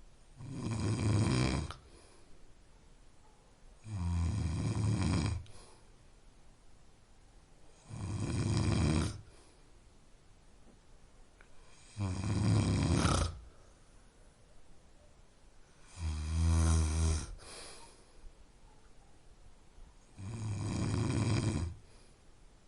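Snoring in a slow, regular rhythm: six snores about four seconds apart, each lasting about a second and a half, with quiet breathing in between.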